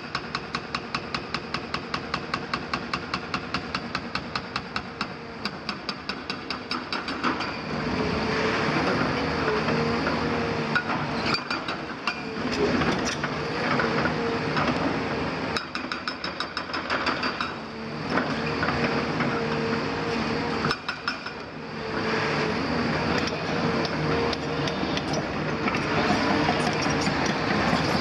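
Hydraulic breaker on a CAT 340F demolition excavator hammering masonry in a fast, regular series of blows, which stop about seven seconds in. After that the excavator's Cat C9.3 diesel and hydraulics work under load with a steady whine, and brick and rubble crunch and clatter irregularly.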